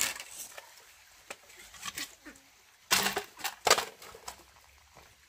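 Light clattering and knocking of loose bamboo pieces being handled: a brief burst at the start, a single knock about two seconds in, and a quick cluster of knocks about three seconds in.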